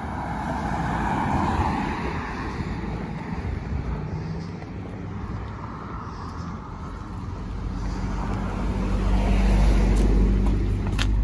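A car driving past on the street, its tyre and engine noise swelling and fading over the first few seconds. Later a low engine rumble builds and is loudest near the end.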